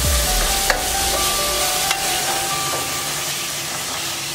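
Onions and tomatoes sizzling in oil in a stainless steel kadai while a steel ladle stirs and mashes them, the ladle clicking against the pan about twice. The tomatoes are cooked soft and mashing down into the onions.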